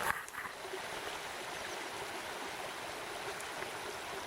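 Shallow river water running steadily over stones.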